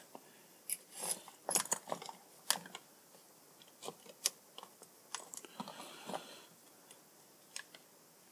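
Irregular small clicks and taps of plastic parts of a GHD hair straightener's housing being handled and fitted together by hand, with a brief rustle about six seconds in.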